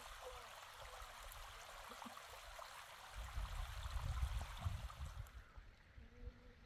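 Shallow stream of water running over rock in a gully, an even rushing hiss, with irregular low rumbles over it. The water sound drops away about five seconds in.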